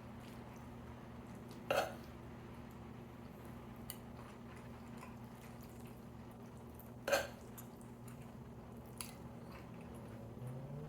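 Close-miked eating of brisket: quiet chewing with two louder, short wet mouth smacks, about two seconds in and about seven seconds in, and a few fainter clicks, over a steady low hum.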